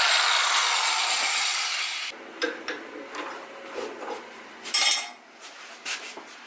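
A 304 stainless steel tube spinning in a drill press is being ground down: a steady abrasive grinding hiss that stops about two seconds in. Light metallic clinks and knocks follow as the tube is handled, with one short scrape just before five seconds.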